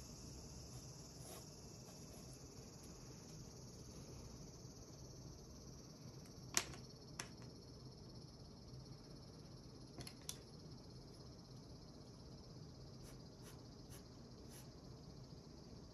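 Faint steady high hiss, with colored pencils clicking as they are picked up from and set down on a wooden desk: a sharp click about six and a half seconds in, then a few lighter clicks and ticks.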